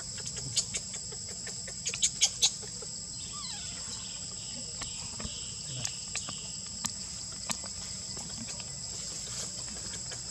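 Steady high-pitched insect drone, with a few sharp crackles of dry leaves, the loudest about two seconds in as an infant macaque rolls about on the leaf litter.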